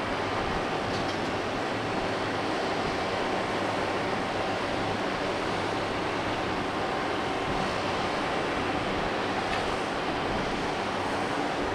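Steady hum and rush of a large ship, with faint steady machinery tones over an even noise of wind and water.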